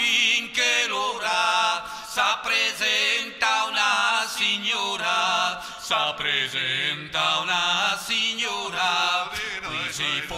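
Folk singing: voices carry a melody in phrases, with pitch slides and wavering ornaments.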